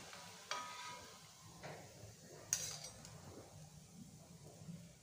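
Metal wire spider strainer and slotted spoon clinking against each other and the aluminium kadai as fried balls are scooped out of the oil: three light clinks, the first with a brief metallic ring.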